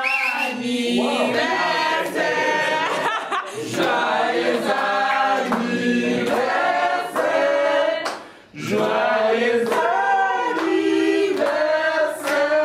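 A group of people singing together in chorus, with some clapping along. The singing breaks off briefly about eight and a half seconds in.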